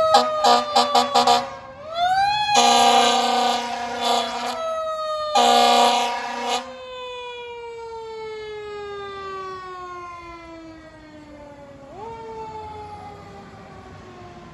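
Fire engine siren wailing, its pitch sliding slowly down and rising again, with a run of short air-horn toots at the start and two longer air-horn blasts about three and six seconds in. It is the emergency warning of an engine responding to a call, and it grows fainter as the truck drives away.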